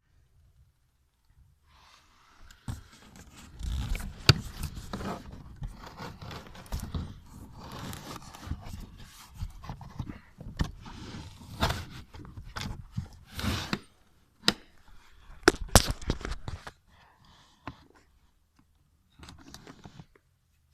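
Close-up scraping and rustling with a run of sharp clicks and knocks, like hands handling hard parts; it breaks off for a moment about 14 seconds in, dies away around 17 seconds, and a short rustle comes near the end.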